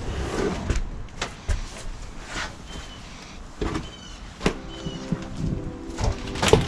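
Irregular knocks, bumps and scrapes of heavy items being handled and shoved, with a few short high squeaks.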